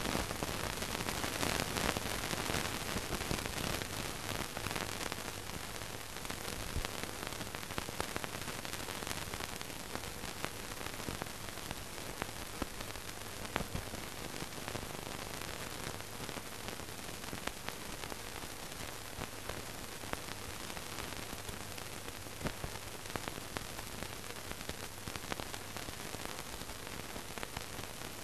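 Steady hiss and crackle with a low hum and scattered clicks: the background noise of an old optical film soundtrack, with no other sound in it.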